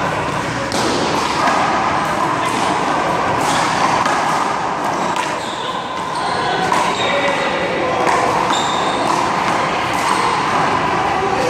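Handball rally: the small rubber ball smacks off players' hands and the wall, a sharp slap every second or two, over steady chatter from people around the court.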